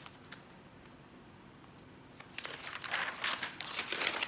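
Quiet room tone, then about two seconds in a rustling, crinkling handling noise starts and grows louder.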